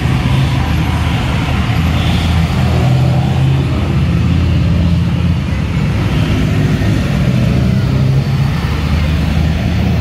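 Steady low engine rumble of road traffic, a large vehicle's engine running nearby, with no sudden events.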